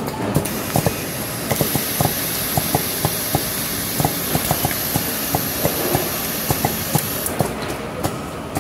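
Automated assembly machine running: pneumatic actuators and moving parts clicking and clacking irregularly, with a steady high hiss of compressed air that sets in about half a second in, strengthens, and stops about seven seconds in.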